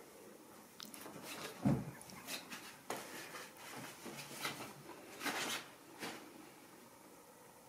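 Kittens scrambling on and through a nylon pop-up play tunnel: a string of short rustles and crinkles of the fabric, with one dull thump about one and a half seconds in.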